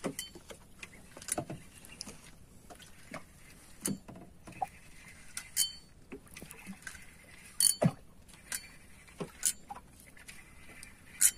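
Irregular sharp clicks and knocks, roughly one a second, from a spinning reel and rod handling in a small boat while a hooked fish is reeled in.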